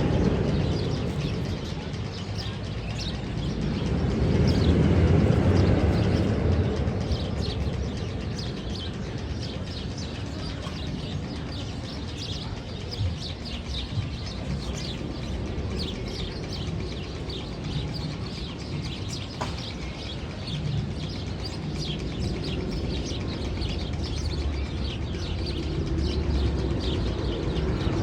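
Small birds chirping rapidly over a steady low rumble, which swells for a couple of seconds about four seconds in.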